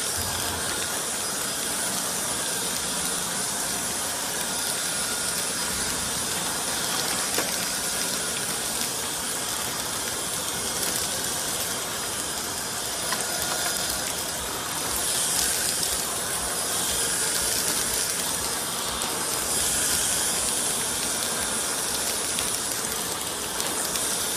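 Cordless stick vacuum cleaner running steadily: an airy hiss of rushing air with a thin, high, steady whine, swelling slightly in the second half.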